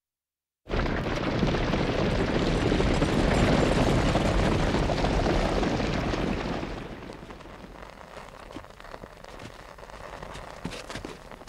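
Storm wind sound effect: a rushing noise that cuts in suddenly out of silence near the start and stays loud for about six seconds, then dies down to a softer hiss with faint crackles.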